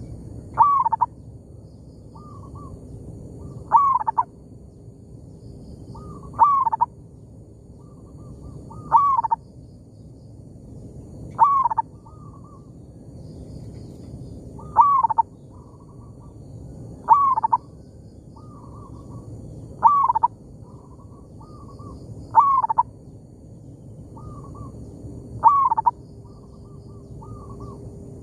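Zebra doves (perkutut) cooing: a loud rolling coo about every two and a half seconds, with softer coos in between.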